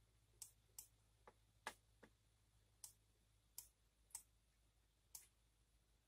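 Computer mouse clicking about nine times at uneven intervals, each click short and faint against a quiet background.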